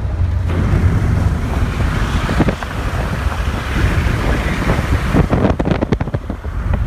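Wind rushing and buffeting on a phone microphone inside a car moving at highway speed, over a steady low road rumble. The rushing swells about half a second in, with a run of sharp gusty thumps about five seconds in.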